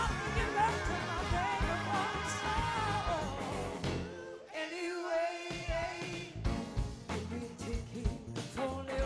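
Live soul-rock band with a female lead vocal over bass and drums. About four seconds in, the bass and drums drop out while backing voices hold a note, then the band comes back in on the beat about a second and a half later.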